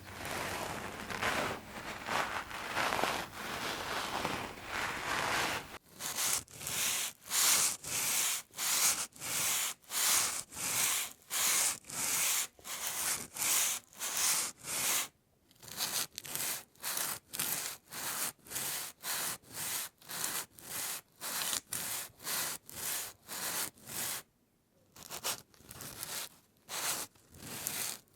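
Plastic sheeting being rubbed and crinkled: a continuous crinkling rustle for about six seconds, then a steady run of short rubbing strokes about two a second, with a couple of brief pauses.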